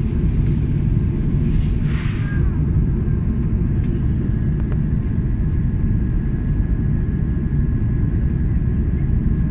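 Steady low rumble of an Airbus A330 airliner's jet engines and airflow heard inside the passenger cabin, with a faint steady high whine over it.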